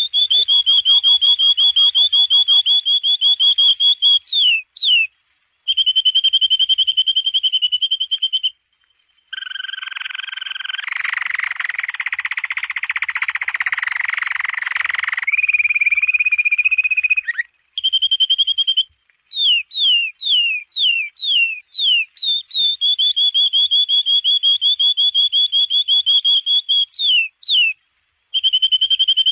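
Domestic canary singing: long, fast trills of rapidly repeated high notes in phrases with short breaks. About ten seconds in, a harsher buzzing roll lasts several seconds, and a run of quick downward-sweeping notes follows around twenty seconds in.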